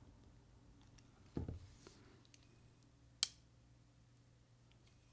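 Small handling sounds of a folding knife and a driver tool being worked on: a soft low thud about a second and a half in, then one sharp click a little after three seconds.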